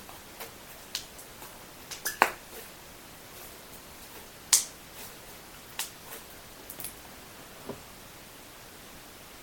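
Light green butter slime being pressed and stretched by hand, giving scattered soft clicks and pops, the loudest about four and a half seconds in; they die away for the last second or so.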